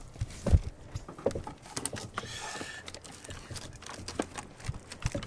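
Irregular small clicks and knocks of hoses and fittings being handled and pushed into place in a car's engine bay, with one louder knock about half a second in and a brief rustle a little after two seconds.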